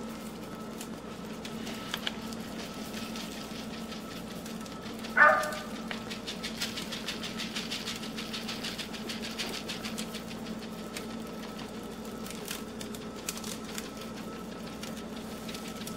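Dry rolled oats sprinkled from a bowl, falling in light ticks onto a glazed meatloaf and its foil-lined pan, over a steady electrical hum. A short high squeak that drops in pitch about five seconds in.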